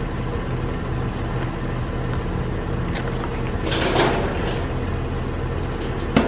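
Vehicle engine idling steadily while a utility trailer is rolled across concrete by hand, with a rolling, rattling noise about four seconds in and a couple of sharp metal knocks near the end.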